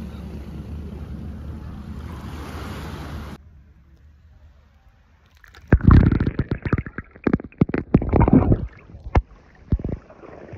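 Wind and surf at the beach with wind noise on the microphone, cutting off suddenly about three seconds in. After a short lull, loud irregular low rumbles and knocks come and go through the rest.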